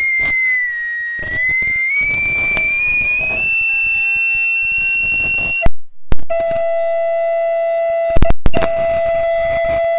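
Audio feedback squealing loudly: a wavering high whistle that sags slightly, then rises and holds a higher pitch. A little past halfway it cuts out with a loud pop, and a lower steady feedback tone with fainter overtones takes over, broken by a few sharp clicks.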